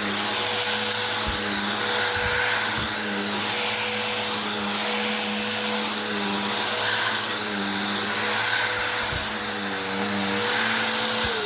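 Bissell vacuum cleaner running steadily, its motor pitch shifting a little as it works, with a few short low knocks. Right at the end it is switched off and the motor's pitch begins to fall.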